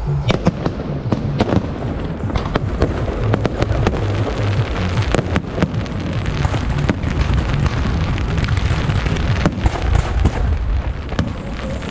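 Fireworks going off: many sharp bangs and crackles in quick, irregular succession over a low rumble.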